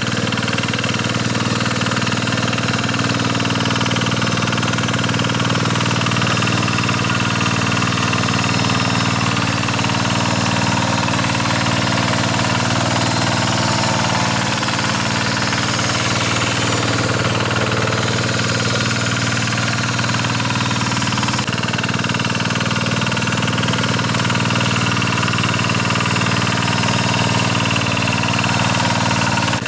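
Kubota single-cylinder diesel engine of a Quick two-wheel hand tractor running steadily while its rotary tiller churns through wet rice-field soil.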